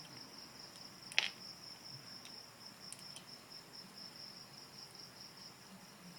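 Crickets chirping in a steady, high, pulsing trill. A sharp click about a second in, with a few fainter clicks soon after.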